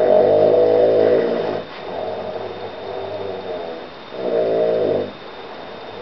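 A man snoring: a loud snore lasting about a second and a half at the start, a quieter stretch of breathing, then a second loud snore about four seconds in.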